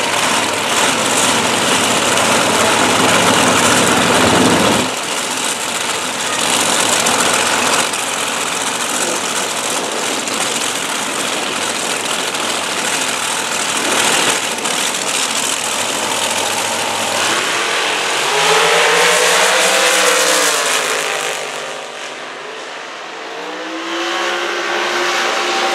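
Two Top Dragster race engines running loud at the starting line, then at full throttle as the cars launch and run down the quarter mile. In the last third the engine note falls away and shifts in pitch.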